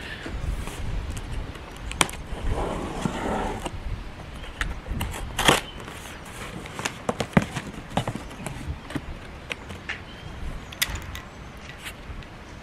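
Cardboard packaging being handled and cut open: rustling and scraping of a cardboard box on a larger box, with sharp knocks and clicks every few seconds as a knife works at its tape. Wind rumbles on the microphone underneath.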